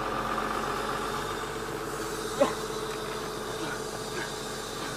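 Large excavator's engine running steadily, with one short, sharp sound about halfway through.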